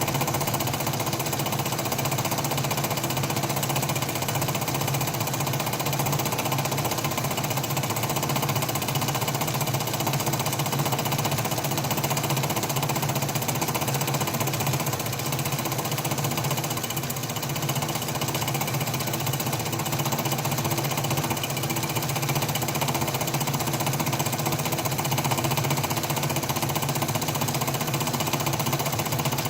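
Atlas metal lathe running under a cut in steel: a steady mechanical rattle over a constant low hum.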